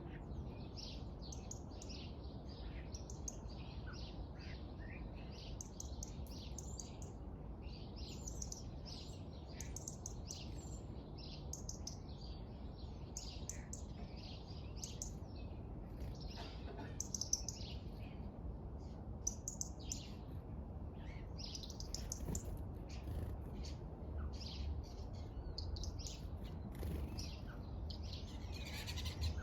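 Small birds chirping: many short, quick calls overlapping one another without a break, over a steady low rumble.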